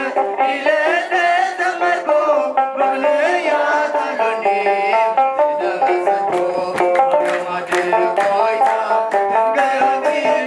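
Eritrean mezmur, a Tigrinya hymn, sung by a group with instrumental accompaniment. From about six seconds in, a steady drum beat with a low thump joins the song.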